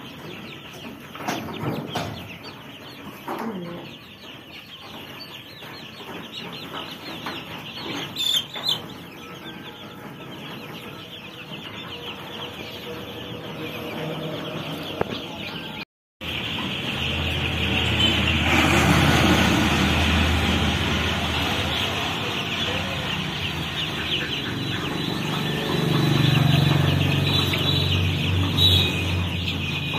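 A large flock of young chicks peeping and chattering constantly. The sound drops out for a moment about halfway, then comes back louder with a low hum underneath.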